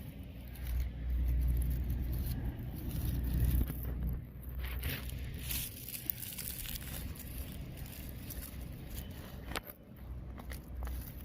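Hands and a tool digging in garden soil for potatoes: a few short scrapes and rustles over a low rumble that swells and fades.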